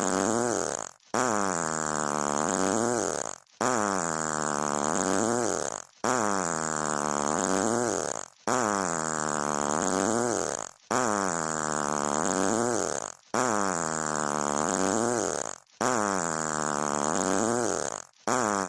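Fart sound effect: the same long, buzzy fart repeated about every two and a half seconds, with a brief gap between repeats. Each one drops in pitch and then rises again.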